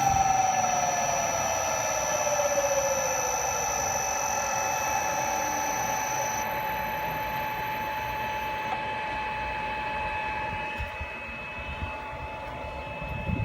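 Three-phase electric motor running on a variable frequency drive, giving a steady electrical whine made of several high tones. One tone glides down in pitch over the first few seconds, and the highest tones drop out about six and nine seconds in.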